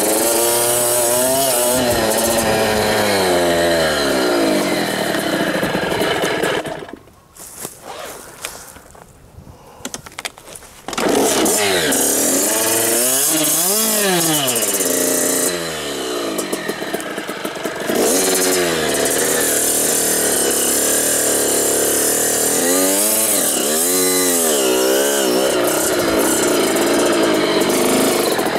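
Small two-stroke Kawasaki KX dirt bike engine revving up and down as the bike climbs and rides over the trail, with quick blips of the throttle. About seven seconds in the engine sound drops away for about four seconds, then comes back at full revs.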